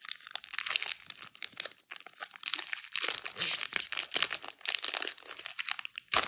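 Foil wrapper of a Pokémon trading card booster pack crinkling and tearing as it is ripped open by hand, a dense run of quick crackles.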